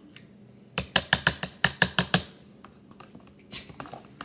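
A spoon tapped quickly against a cup or bowl, about ten sharp clicks in a second and a half, followed by a short hiss near the end.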